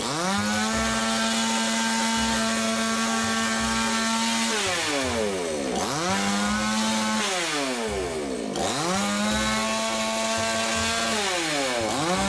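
Petrol two-stroke chainsaw running at high revs. Its engine pitch drops away and climbs back up several times as the throttle is let off and opened again while it saws down through a cardboard box of ground biscuits.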